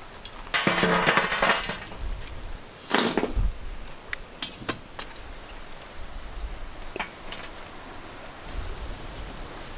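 Long metal tongs scraping and dropping burning charcoal onto a steel pot lid: two rattling scrapes, then scattered clinks and knocks of coals and tongs on the metal.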